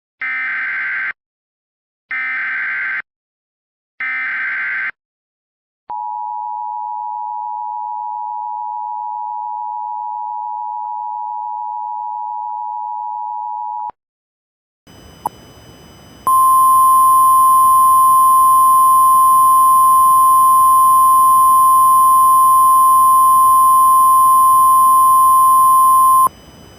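Emergency Alert System header: three one-second bursts of screechy digital data tones, then the steady two-tone attention signal for about eight seconds. After a short silence a background hiss comes in and a single steady weather-radio-style alert tone sounds over it for about ten seconds.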